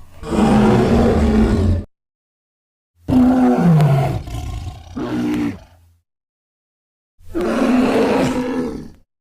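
Bear roaring in three separate bouts, each one to three seconds long, with dead silence between them; the second roar falls in pitch.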